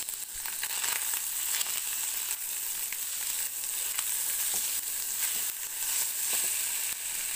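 Cooked rice frying in ghee in a kadai as it is stirred and tossed with a spatula: a steady sizzle with scattered light scrapes and taps.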